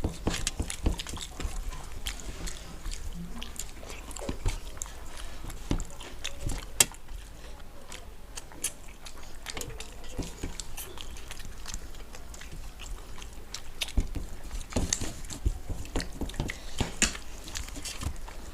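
People eating masala-fried fish and rice by hand: chewing and biting, with scattered small crunches, clicks and lip smacks throughout.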